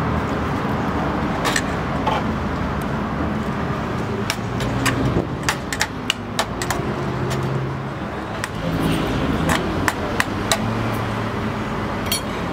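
Metal spoon clinking and scraping against a steel bowl as the lamb, chickpeas and potato of dizi are stirred, a string of irregular sharp clicks. A steady background noise runs underneath.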